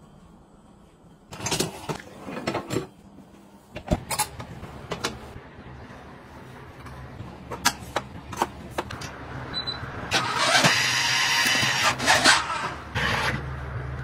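Dishes and kitchen utensils being handled and set in place: clinks, clatter and several sharp knocks, over a low steady hum. A louder rushing noise comes in about ten seconds in and fades near the end.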